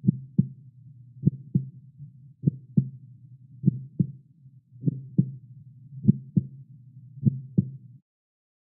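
Heartbeat sound effect: a slow, steady double thump repeating about every 1.2 seconds over a low hum. It stops shortly before the end.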